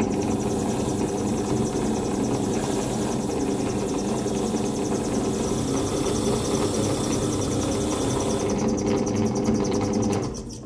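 A power tool runs steadily on the rusty pliers, a hum with a harsh hiss over it. The hiss stops about eight and a half seconds in, and the hum carries on briefly before it fades out near the end.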